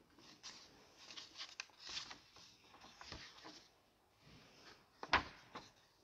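Quiet rustling and small knocks of handling at the altar, with one sharper knock about five seconds in.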